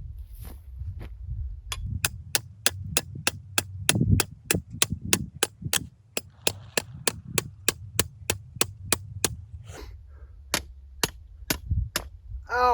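Hammer blows driving a small fence post into the ground: a rapid, even run of sharp strikes, about three to four a second, that pauses and then goes on with a few slower blows near the end.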